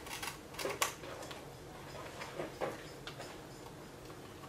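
Scattered light clicks and taps from hands handling the parts and wiring of an RC buggy: a few near the start, more about halfway through.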